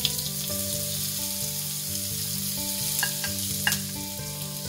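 Chopped onion and green chilli sizzling as they hit hot oil with cumin seeds in a frying pan: a steady sizzle, with two sharp clicks about three seconds in.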